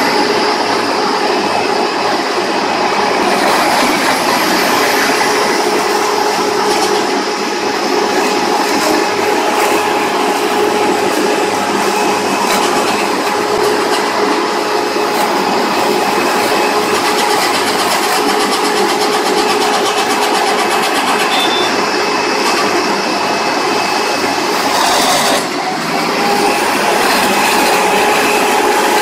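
Wood shredder with spiked, toothed rollers crushing logs into chips: a loud, steady grinding din over a constant machine hum, dipping briefly near the end.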